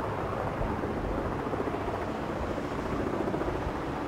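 Steady drone of a low-flying blimp's propeller engines overhead.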